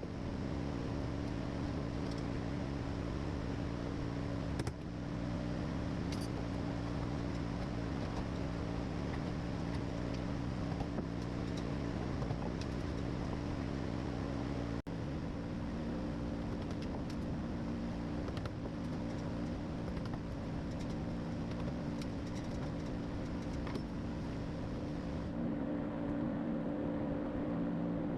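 Steady motor hum with several held tones and a few faint clicks, cutting out for an instant about fifteen seconds in.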